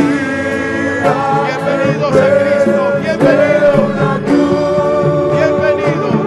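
Gospel worship music: voices singing a slow hymn over instrumental accompaniment, with long held notes.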